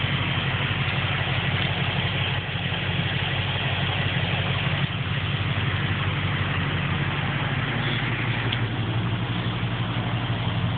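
Supercharged 383 stroker V8 of a 1996 Impala SS idling steadily, a low even pulse with a hiss over it.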